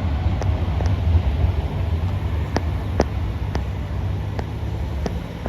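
A light-rail tram passing close by with a steady low rumble, and sharp metallic clicks every half second or so.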